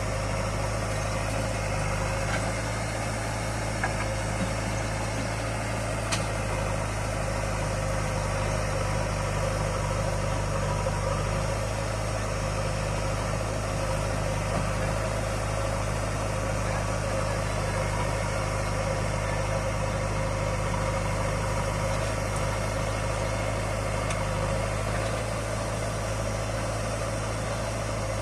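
Heavy diesel engine idling steadily at a constant pitch, with a couple of faint short clicks a few seconds in.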